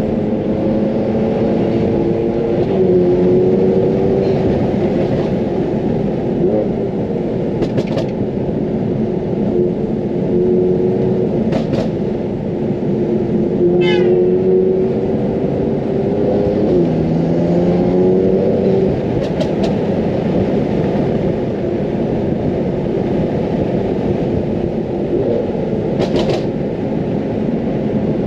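Straight-piped BMW F80 M3's twin-turbo inline-six running at steady cruise with a loud, even exhaust drone. The pitch dips and then climbs again about two-thirds of the way through as the revs change. A few brief sharp clicks stand out over the drone.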